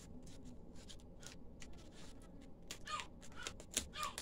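Faint snips of small scissors and crinkling of the clear plastic wrap as a packaged kit is cut open, a scatter of short clicks and crackles that grow busier in the last second or two.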